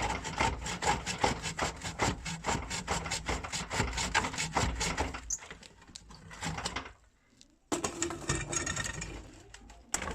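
Rapid, rhythmic scraping strokes for about six seconds, then a short pause and a second rougher spell of rubbing.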